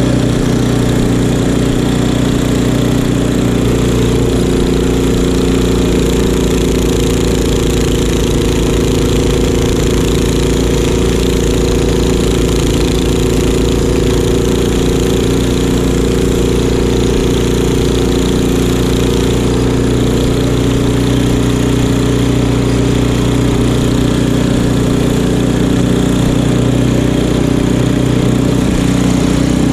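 Craftsman two-stage snow blower's gas engine running steadily under load while it clears deep snow, its auger and chute throwing snow.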